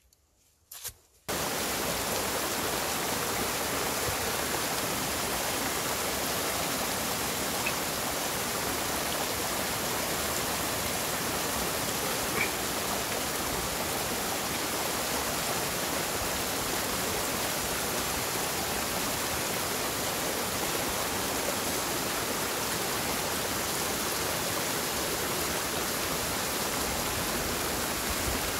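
Steady rushing water of a mountain stream or waterfall, starting abruptly about a second in and holding at an even level.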